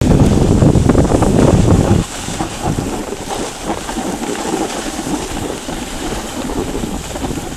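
Wind buffeting the microphone of a camera carried down a ski slope, a heavy low rumble for about two seconds that then drops to a lighter rush, over the gritty hiss of sliding on snow.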